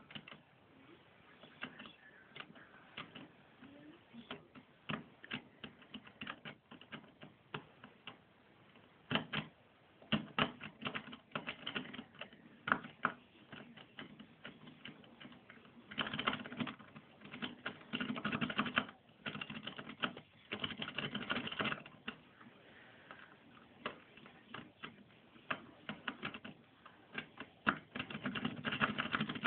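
Metal lock pick raking inside a car ignition barrel, making sharp metallic clicks against the lock's tumblers. The clicks come in runs of rapid clicking with quieter pauses between them.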